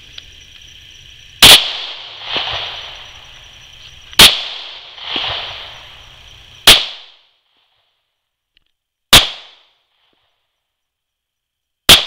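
.45 ACP handgun firing five single shots into a mini fridge, about two and a half seconds apart, each a sharp crack with a short echo.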